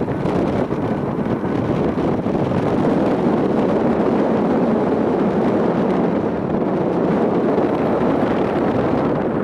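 Strong wind buffeting the microphone over the steady noise of a Boeing 737-400 freighter's CFM56 jet engines as it comes in to land. The noise grows a little louder about two to three seconds in.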